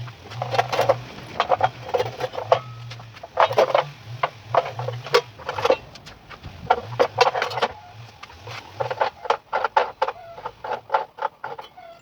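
Workshop tool noise: irregular runs of rapid clicks and knocks over a low hum that starts and stops.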